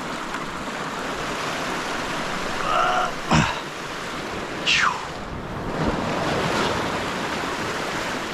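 Ocean surf washing steadily against the shore. There is a sharp knock about three seconds in, and a short falling squeak a couple of seconds later.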